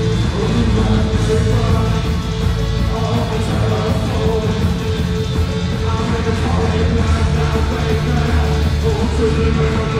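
Loud live band music through a concert PA, heavy on the bass, with a steady held note running underneath.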